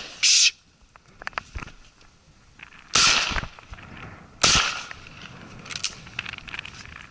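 Two shotgun shots about a second and a half apart, each followed by a short echo, fired at thrushes. A short burst of noise comes just before, at the very start.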